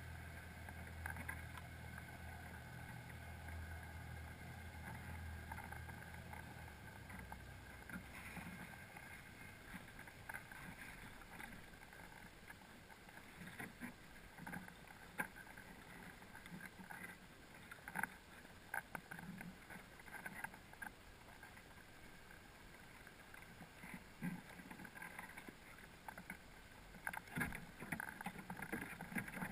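Muffled underwater sound inside a crab pot on the seabed, heard through a camera housing: a low hum that stops about seven seconds in, then irregular clicks and taps that come thicker near the end.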